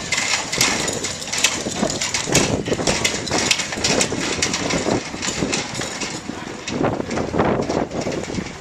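Gusty wind buffeting the microphone, with irregular crackles and knocks.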